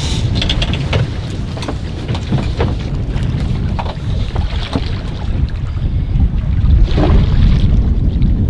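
Wind buffeting the microphone aboard a small fishing boat at sea, a heavy low rumble with the sea's noise and scattered short knocks and splashes.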